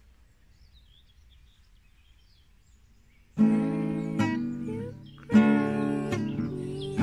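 A faint lull with a few faint bird chirps, then about three and a half seconds in, background music starts: an acoustic guitar strumming chords, with a fresh strum about two seconds later.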